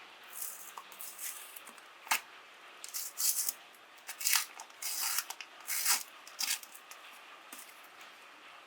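Ice cream cone crunching and cracking as a meat grinder breaks it up, in irregular crackly bursts, with a sharp snap about two seconds in and a run of crunches through the middle.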